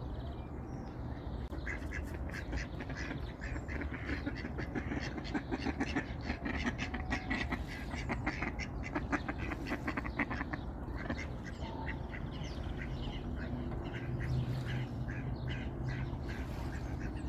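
Ducks quacking in a fast, dense run of calls through the first half, thinning to scattered calls later.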